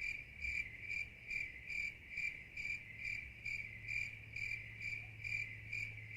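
Cricket chirping in a steady, even rhythm, a little over two high chirps a second, over a faint low hum.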